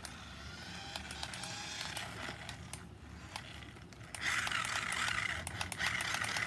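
Toy remote-control car's small electric motor and gears whirring as it drives, with a faint rising and falling whine early on and scattered clicks, then a louder, harsher whirr from about four seconds in.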